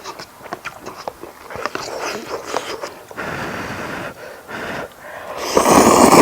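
Close-up mukbang eating sounds: a mouthful being chewed with many small wet clicks and crunches, then a loud noisy breath about five and a half seconds in.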